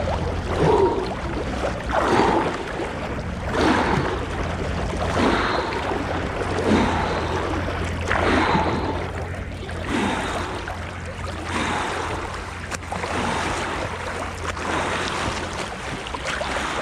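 Open-water swimming strokes close to the microphone: a rhythmic swish and splash of cold river water about every second and a half, over a steady low hum.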